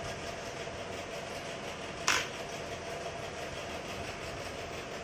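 Electric hair clippers running with a steady buzz while trimming the back of the neck, with one sharp click about two seconds in.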